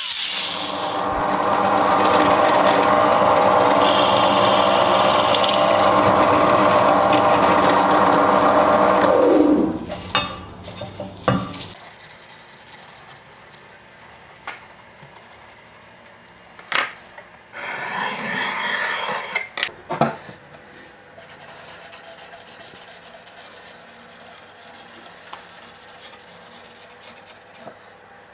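Angle grinder running on a steel sword blank, then spinning down with a falling pitch about ten seconds in. After that, a steel scriber scratching lines along the steel blade, with light knocks of tools on a wooden workbench.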